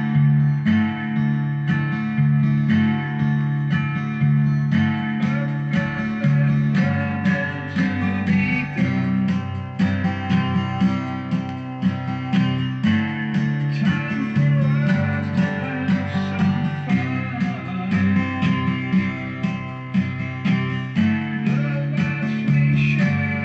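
Guitar music: quick picked guitar notes over sustained low bass notes.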